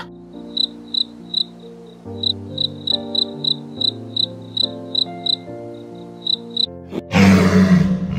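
A cricket chirping in short, evenly spaced chirps, about two a second, over soft background music with held notes. About a second before the end, a loud, rough roar-like animal call begins.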